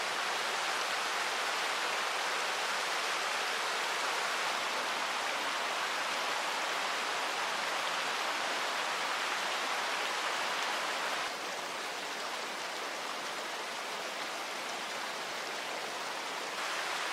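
Steady rush of water with no distinct events. It drops a little in level about eleven seconds in and comes back up near the end.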